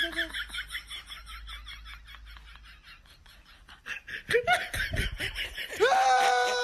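A man laughing in quick, even bursts that fade away over the first few seconds. Near the end comes a short pitched vocal sound, then a loud, held, high-pitched vocal cry.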